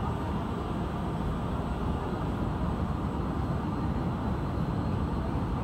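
Steady low rumble of a busy shopping mall's background din, with no clear voices standing out.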